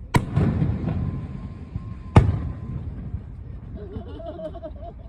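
Aerial fireworks shells bursting: two sharp bangs about two seconds apart, each followed by a long rolling rumble.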